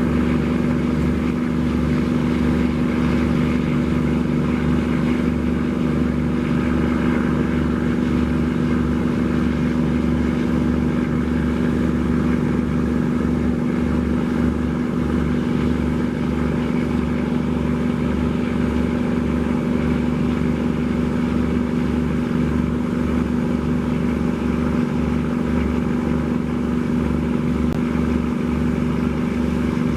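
A vessel's engine running at a steady speed, a loud, even low drone with a fast pulsing throb, with a rushing noise of water and wind over it.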